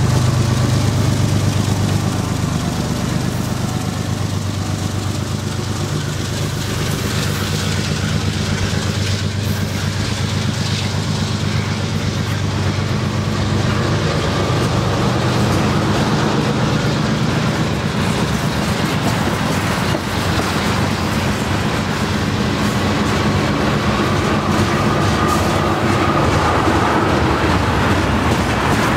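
Long freight train rolling past: the diesel locomotive's engine is heard at first, then the steady rumble and clickety-clack of tank car wheels over the rails.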